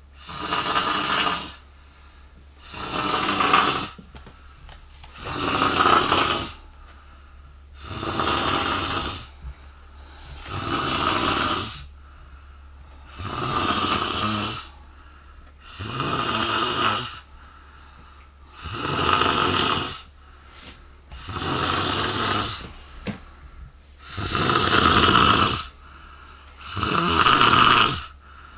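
A woman snoring very loudly in her sleep, one long snore about every two and a half seconds, eleven in all.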